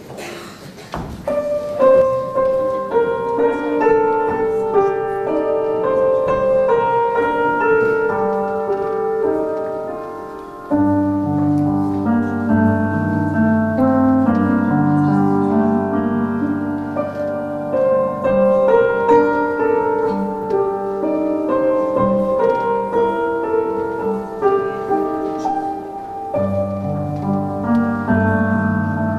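Piano music, a melody of single notes over chords. About ten seconds in, low held bass notes come in underneath and the music gets louder.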